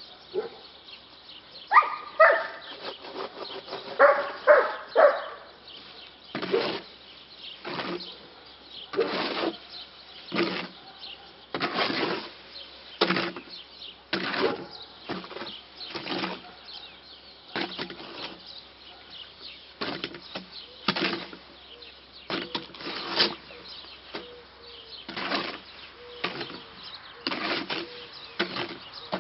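Shovel working wet concrete in a wheelbarrow, one scraping stroke about every second. A few short pitched calls sound in the first five seconds.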